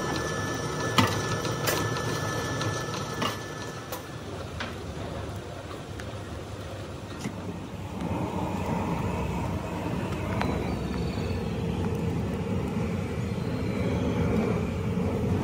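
Steady mechanical running of a foundry sand mixer, with sharp knocks and a thin steady whine in the first few seconds as its blades churn the sand. From about eight seconds in there is a denser low rumble, with thick liquid pouring into a metal bucket.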